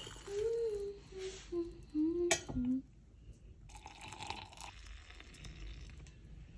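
A person hums a few short notes, with a single sharp clink partway through. Then just-boiled water is poured from a stainless steel pitcher into a glass, a splashing pour that is strongest for about a second and then trails off.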